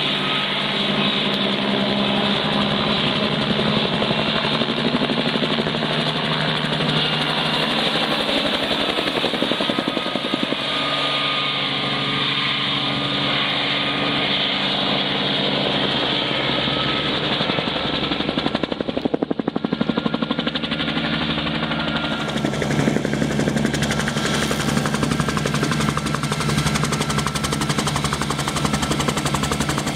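A 1966 Bell 47G-5 helicopter in flight, its piston engine droning under an even, rapid rotor thump. The sound brightens and grows a little louder about two-thirds of the way through.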